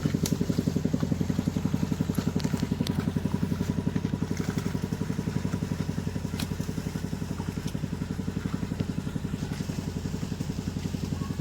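A small engine running steadily with a fast, even pulse, with a few light clicks over it.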